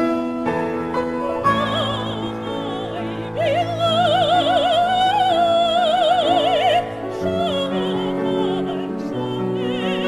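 A female soprano sings a Chinese folk song solo with wide vibrato over piano accompaniment. The piano plays alone for about the first second and a half before she comes in, and in the middle she holds one long, louder note.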